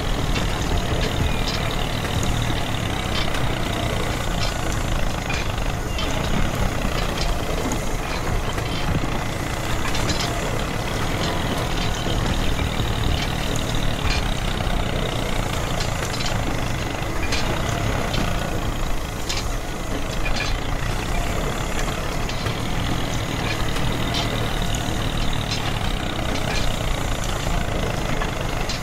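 Small motor of a miniature DIY tractor's drilling rig running steadily while the drill bit bores into sand, with scattered faint clicks.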